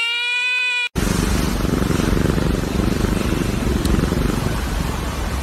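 A fire engine siren wails, slowly rising in pitch, and cuts off abruptly about a second in. It is followed by a loud, steady, rough noise.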